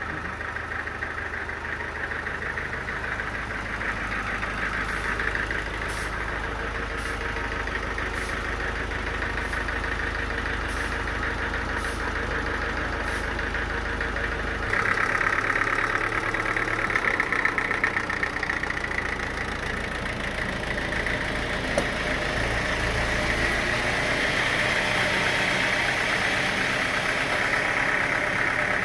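Sawmill machinery running steadily, an engine-driven saw. About halfway through, the sound shifts: the deep rumble drops away and a higher-pitched whine grows stronger. Faint ticks come about once a second in the first half.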